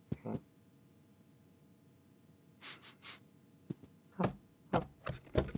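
Cartoon sound effects: a short vocal sound at the start, two breathy puffs about halfway through, then a quick run of sharp taps near the end.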